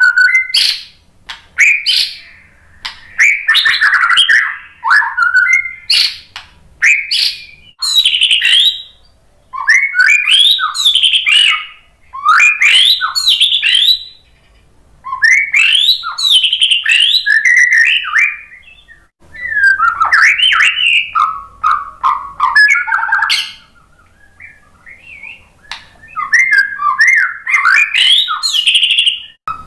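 White-rumped shama singing a long series of loud, varied whistled phrases, each a second or two long and separated by short pauses.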